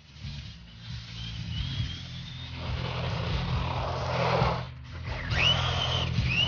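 Brushless electric motor of a Traxxas Rustler RC stadium truck (Feigao 5070kv motor, Mamba Max ESC) whining at speed, its pitch rising under acceleration about a second in and again near the end. In the middle, a loud rushing noise of tyres on asphalt builds as the truck passes close by, then cuts off suddenly.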